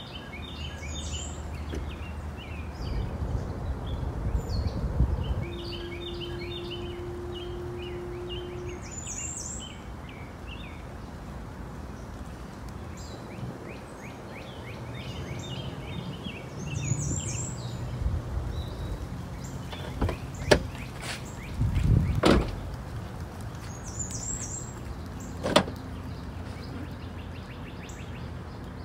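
Small birds chirping again and again over outdoor background noise, with a low rumble of the small electric car rolling in the first few seconds. Later come a few sharp clicks and knocks as the car's rear hatch is handled and opened.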